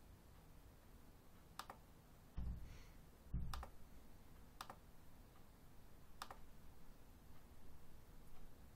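About four sharp, separate clicks of a laptop's pointer button, a few seconds apart, as a YouTube player's quality menu and full-screen button are used. Two dull low thumps come between the first and second clicks.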